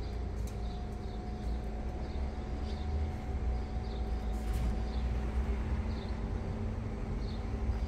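Cat crunching dry kibble, faint scattered crunches over a steady low rumble and hum, with short high chirps repeating every half second or so.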